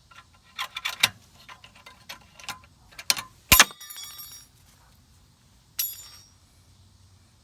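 Metal tools clicking and tapping during work on a car's rear brake caliper, then two sharp metallic clanks, the first loud, each ringing briefly like a struck piece of steel.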